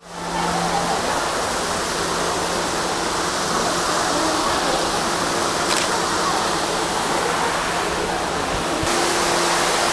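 Waterfall pouring steadily, a constant rush of falling water with a faint steady hum underneath.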